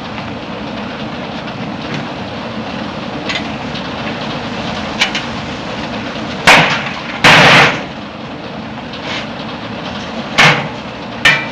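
A steady rushing background noise broken by a few loud, sudden bangs, the longest lasting about half a second around the middle, with smaller clicks between them.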